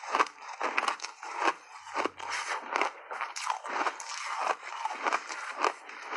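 Chunks of ice being chewed, an irregular run of crisp crunches, two or three a second.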